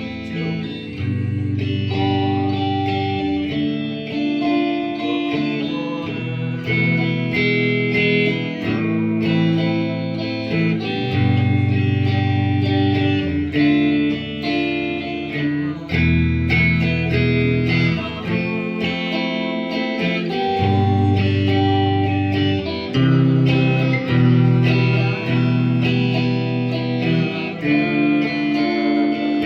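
Background music led by guitar, with plucked notes over steady chord changes.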